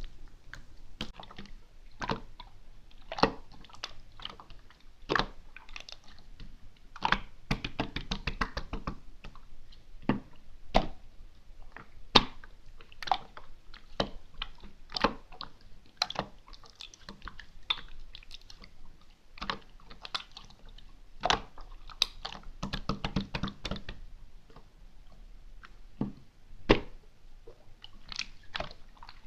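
Hands pressing, poking and squishing a slime with crunchy topping bits, giving irregular wet clicks and pops, with two longer runs of dense crackling.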